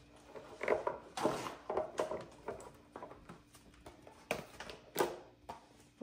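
Cardboard boxes of tea bags being handled and set into a clear plastic organizer bin on a stone countertop: rustling and sliding, with several light knocks of box against plastic.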